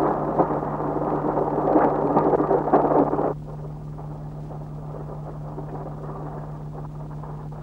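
Loud rumbling noise with crackles that cuts off abruptly about three seconds in, leaving a steady low hum.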